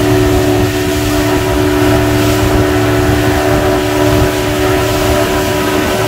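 Yamaha Enduro 15 two-stroke outboard motor running at a steady, unchanging pitch, driving a small open boat at speed, with water rushing past the hull.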